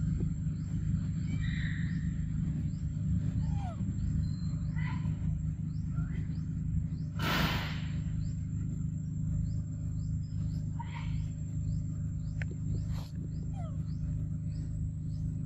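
Forest ambience: a steady low rumble under scattered short, high animal calls, with a brief loud burst of rustling hiss about seven seconds in and a couple of sharp clicks near the end.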